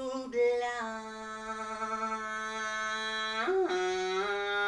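Male voice singing long held notes, drawing out a word over several seconds, with a short slide between notes about three and a half seconds in.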